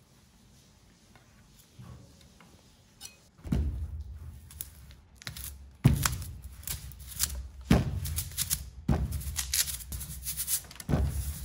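Large hand ink roller rolled back and forth through tacky red printing ink on a lithographic stone ink slab. From about three and a half seconds in come about five strokes, each a sticky hiss over a low rumble. The printer listens for this sound to judge whether the ink is rolled out right.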